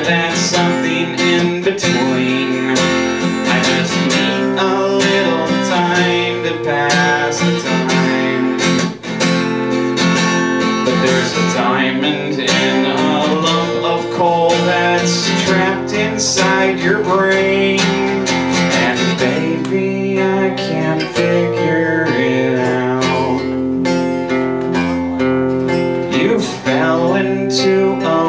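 Acoustic guitar strummed in a steady rhythm, ringing chords played live.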